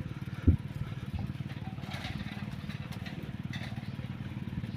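A small vehicle engine running steadily with a fast, even pulse. There is one sharp thump about half a second in.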